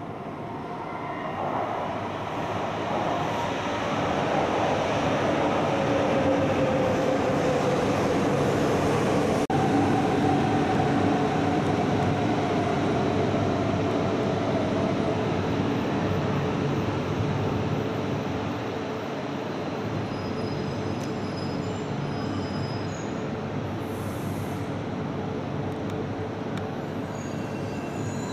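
Shinkansen bullet train pulling into the platform: the rumble of wheels and running gear builds over the first few seconds, then eases off. Through it a whining tone falls slowly in pitch as the train brakes and slows.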